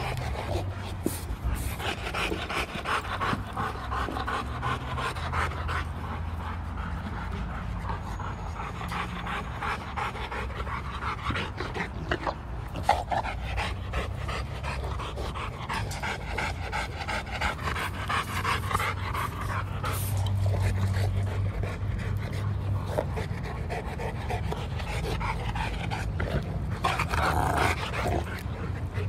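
Rottweiler panting hard and rhythmically while mouthing and pushing a hard red play ball, with scattered scuffs and knocks from the ball; one sharp knock about thirteen seconds in.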